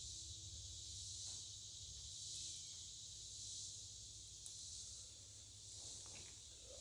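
Quiet steady background: a high hiss over a low hum, with a few faint soft clicks.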